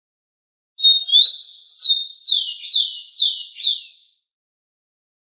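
Rufous-collared sparrow (tico-tico) singing one song: a steady high whistle that slides upward, then five clear whistles, each falling steeply from high to low, about two a second.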